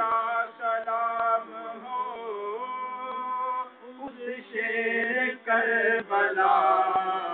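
Men chanting a devotional recitation in long held, sung notes, with short pauses between phrases.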